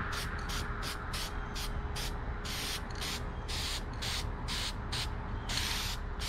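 Rust-Oleum High Heat aerosol spray paint hissing from the can in a quick run of short squirts, about three a second, with one longer spray near the end. These are light, thin passes laying the first coat of black on a rifle stock.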